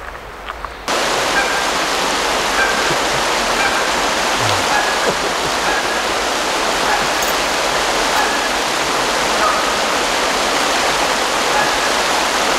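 Mountain creek water rushing, a loud, steady wash that begins abruptly about a second in. Before it come a few light clicks of a spoon stirring in a plastic mug.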